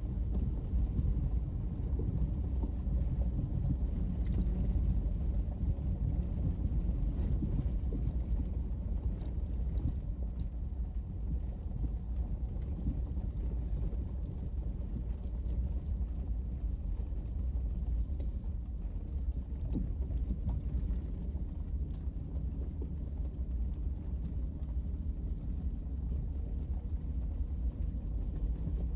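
Four-wheel-drive vehicle driving along a dirt trail: a steady low rumble of engine and tyres.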